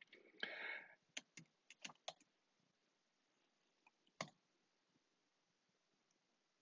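Computer keyboard keystrokes: a quick run of about five clicks after a brief soft noise, then one more click about four seconds in.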